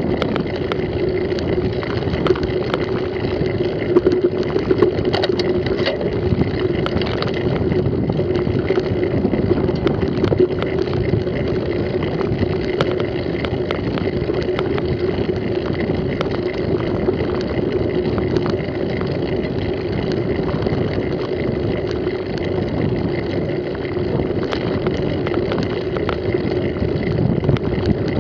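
Mountain bike riding along a muddy dirt track, heard from a camera mounted on the bike or rider: a steady rushing of wind and tyres, with frequent small clicks and rattles over the bumps.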